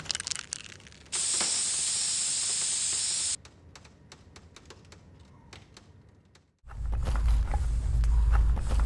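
Glass debris ticking and settling after a television screen is smashed, then a steady, even hiss that starts about a second in and cuts off suddenly about two seconds later, followed by faint scattered crackles. Near the end a loud low rumble starts abruptly.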